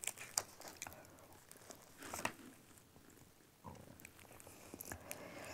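Faint handling noises: scattered small clicks and taps with a few short, soft rustles.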